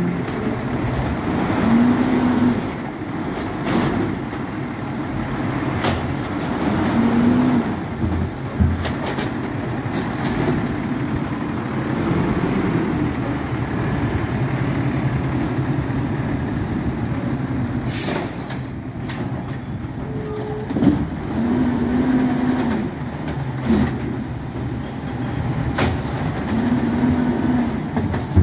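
Automated side-loader garbage truck running, its engine and hydraulics rising briefly every few seconds as the lifting arm cycles, with sharp clanks and knocks from the arm and cart.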